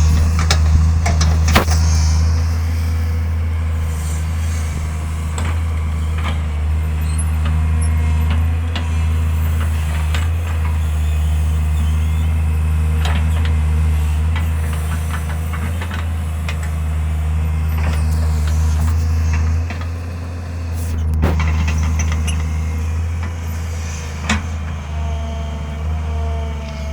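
Diesel engine of a Tata Hitachi 130 excavator running steadily, with scattered sharp knocks and clanks and a rising whine near the end.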